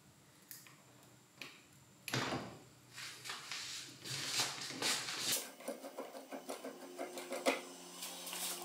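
Metal tools and drill parts being handled while a drill chuck is worked off: a few separate knocks, one about two seconds in ringing briefly, then scraping, and in the second half a quick run of small light clicks.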